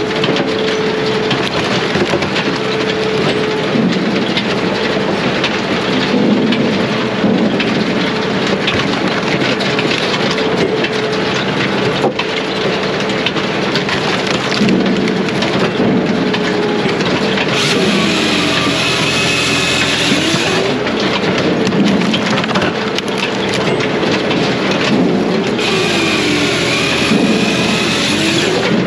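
Diesel firewood processor running hard, its engine note sagging and recovering several times as it takes on load while logs are sawn and split, over a constant clatter and crackle of wood.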